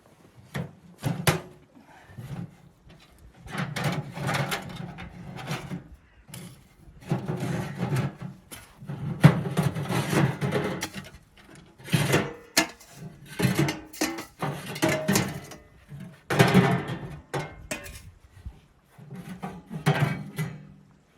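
Irregular handling noises: repeated knocks, clatter and scraping in short bursts about a second or two apart, with a woody sound to them.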